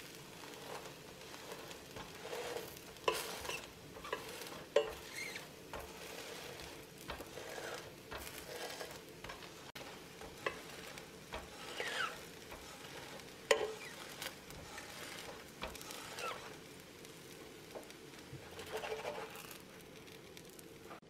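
A shredded-potato and celery-leaf pancake sizzling as it fries, while a stainless steel spatula scrapes, presses and slides under it against the pan in short, irregular strokes, with a few sharper knocks.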